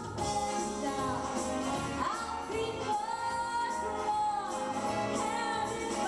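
A woman singing a show tune into a microphone over instrumental accompaniment, holding some long notes.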